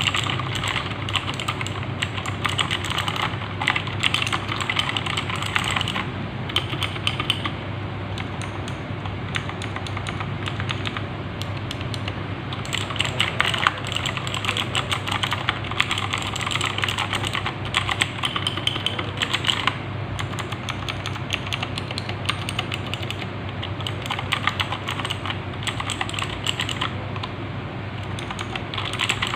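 Fast typing on a Gamen Titan 3 mechanical keyboard with clicky Outemu Blue switches: dense runs of sharp keystroke clicks in bursts with short lulls, over a low steady hum.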